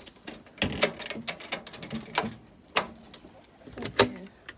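Guinea pig making a series of short, sharp noises, about five spread over a few seconds, the loudest near the end.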